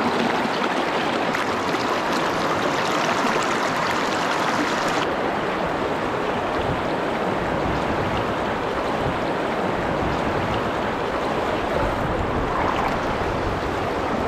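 Shallow river rapids rushing over rocks close around the microphone, a steady churning rush of water.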